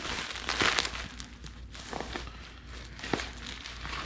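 Cardboard and plastic packaging handled and unwrapped: a burst of rustling and scraping in the first second, then quieter rustling with a few light knocks.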